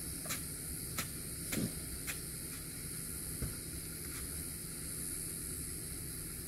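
Hard plastic recovery traction boards knocking and clattering as they are lifted out of the sand and handled: a handful of short sharp clicks and knocks in the first few seconds, the loudest about one and a half seconds in, over a steady high hiss.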